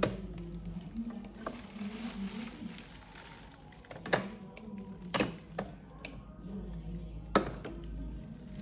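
A few sharp knocks and clacks of household items being handled and set down, about four spread over several seconds, with a low voice underneath.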